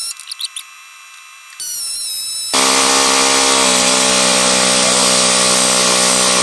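Pneumatic air hammer driving a punch against the seized, mushroomed top link pivot pin of a 1957 Ford 660 tractor. It starts with a lighter burst and a quieter gap, then runs loud and continuously from about two and a half seconds in, as the pin starts to move.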